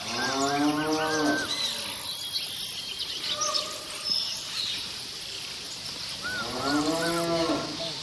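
Cattle mooing: two long calls, one right at the start and one about six seconds in, over a steady high hiss.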